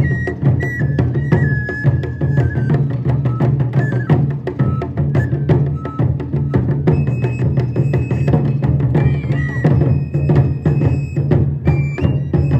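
Japanese festival music for a lion dance: drums struck in a fast, steady rhythm under a high, held melody that steps from note to note, like a bamboo flute.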